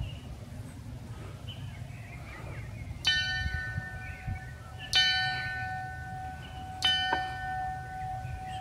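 A small hanging cast bell, recast in 1950 and sounding the note F sharp, struck three times about two seconds apart, each stroke ringing on into the next.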